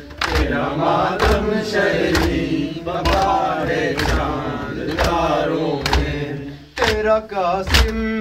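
An Urdu nawha chanted by male voices over rhythmic chest-beating (matam), the hand strikes landing as dull thuds about once a second.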